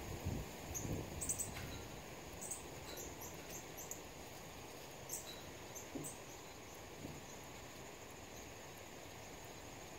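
Steady high-pitched insect drone with short, sharp bird chip notes scattered through it. A few low thuds come in the first second and a half.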